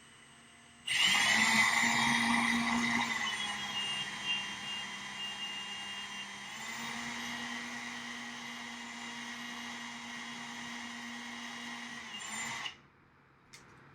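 Power drill running into wood for about twelve seconds, starting suddenly about a second in and stopping sharply near the end, its motor pitch shifting a couple of times as it works.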